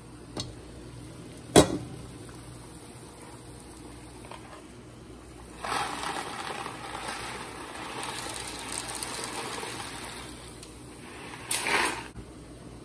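Pot of salted water at a rolling boil. A sharp clink of the glass pot lid about one and a half seconds in, then dry elbow macaroni poured from its box into the boiling water for several seconds, with a short louder rattle near the end.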